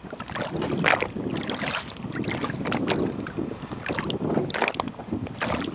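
Water sloshing and lapping against the side of a small boat, with irregular slaps and taps, and wind buffeting the microphone.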